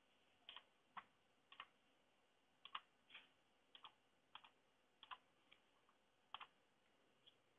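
Faint, irregular clicks of a computer mouse, several of them in quick pairs, over near silence.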